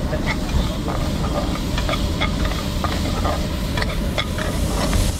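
A steel ladle stirring and scraping chopped onions and capsicum frying in oil in a steel kadhai, with a steady sizzle and frequent short clinks of the ladle against the pan. A steady low rumble runs underneath.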